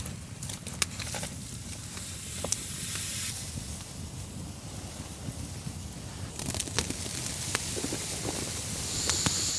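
A campfire crackling and hissing, with scattered sharp pops over a low steady rumble.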